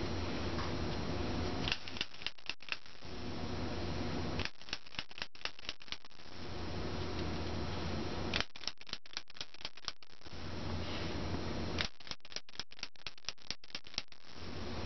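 A dog's claws clicking on a hard floor as it walks, in four short runs of about five taps a second with pauses between. A low steady hum runs underneath.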